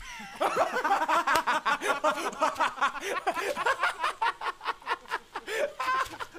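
Two men laughing hysterically together, a fast, continuous run of ha-ha laughs that starts about half a second in.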